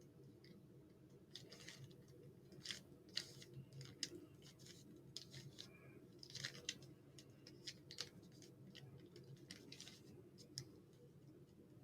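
Plastic 3x3 Rubik's cube being turned by hand, its layers clicking and rattling in quick short flurries with pauses between, over a faint steady room hum.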